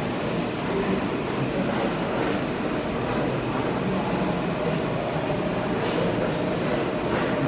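New York City subway train moving past the platform: a steady rumble of wheels on rail, with a couple of sharp clicks about six and seven seconds in.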